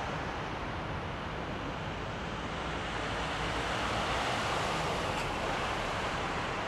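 Airbus A330-300 airliner's General Electric CF6-80E1 turbofans on final approach and landing: a steady, even jet roar that swells slightly about four seconds in.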